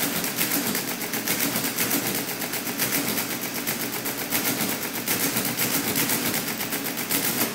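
Friden Model S10 electromechanical calculator running an automatic division: its motor-driven mechanism makes a rapid, even clatter as the carriage shifts, then stops abruptly near the end when the division is done.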